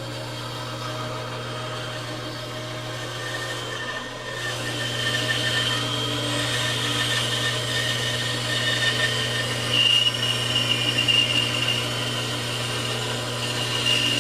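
Woodworking power tool running with a steady motor hum. It dips briefly about four seconds in, then runs louder with a higher whine as it works the wood.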